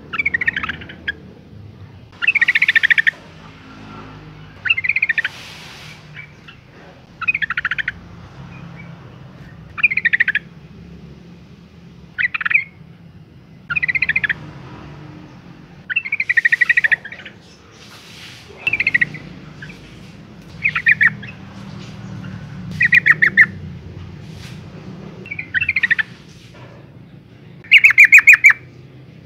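Yellow-vented bulbul giving short, bubbly chattering call phrases, one every two seconds or so, the loudest near the end. It is presented as a female in breeding condition calling for a male.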